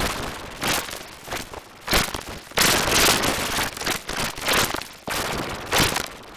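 Harsh crackling noise in uneven loud bursts, with no clear tones, loudest about three seconds in: the song's audio heavily distorted by an editing effect.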